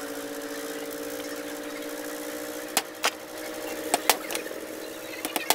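A steady hum, with several sharp clicks and taps of metal parts and tools being handled during the repair of a ceiling fan, about halfway through and again near the end.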